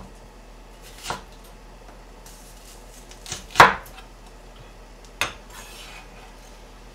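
Chef's knife slicing an onion on a plastic cutting board: about four separate knocks of the blade on the board, a second or two apart, the loudest just past halfway.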